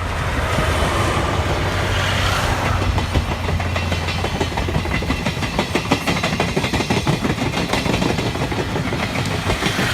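Train hauled by a DE10 diesel locomotive passing close by: rapid clickety-clack of wheels over rail joints, thick and quick from about three seconds in, over a steady low rumble.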